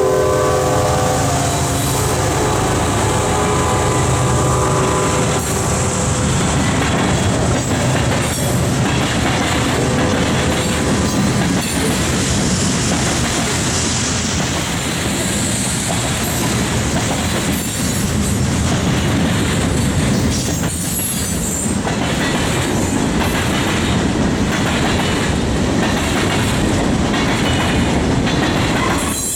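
Freight train passing close by: a diesel locomotive's horn chord trails off over the first few seconds. Then comes the steady loud rumble and clickety-clack of the freight cars' wheels over the rail joints, with a brief high squeal around the middle.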